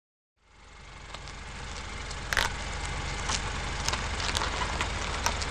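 Car engine idling. It fades in from silence about half a second in, then runs steadily with a few light clicks.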